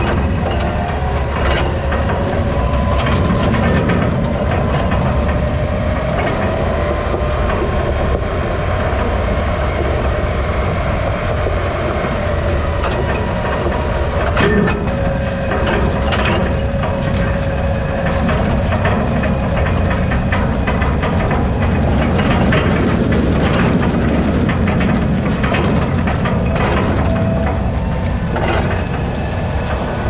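Farm tractor engine running steadily as it tows a grain wagon, with the hitch and wagon rattling and clanking over rough ground and one louder clunk about halfway.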